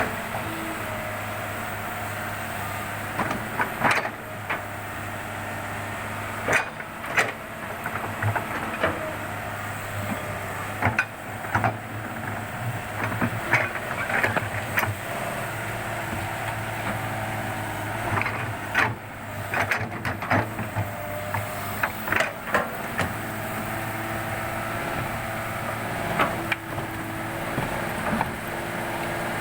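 Excavator diesel engine running steadily, with irregular sharp knocks and clanks from the machine at work.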